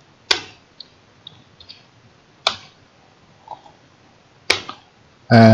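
Scattered keystrokes on a computer keyboard: a few sharp clicks about two seconds apart, with fainter taps between them.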